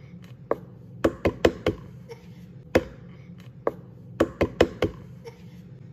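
Sharp taps or knocks, coming singly and in quick runs of four, over a steady low hum.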